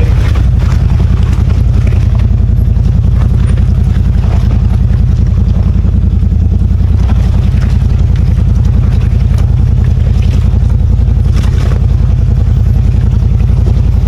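CFMOTO ZFORCE 950 side-by-side's V-twin engine running steadily and loudly, with a few faint knocks over it.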